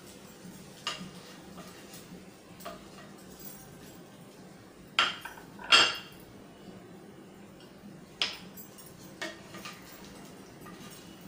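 Kitchenware knocking and clinking as food is served from a frying pan onto a glass plate with a wooden spatula. The loudest is a pair of knocks about five and six seconds in, with a few lighter clinks before and after.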